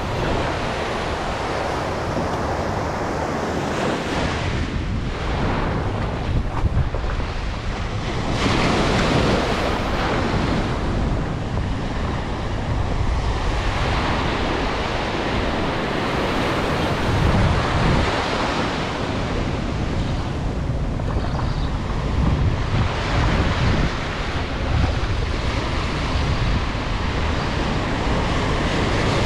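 Ocean surf breaking and washing up a sandy beach, swelling and easing as each wave comes in, with wind rumbling on the microphone.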